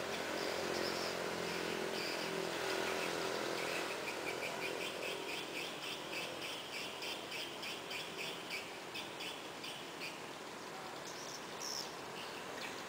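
Swiftlet lure call: rapid twittering chirps of swiftlets, short high notes repeated several times a second, thickening into a dense run a few seconds in, over a steady hiss.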